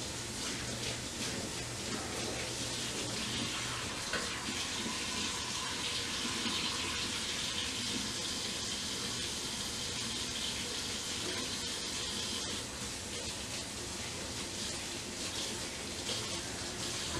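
Kitchen faucet running steadily into the sink while dishes are washed by hand; the water is shut off right at the end.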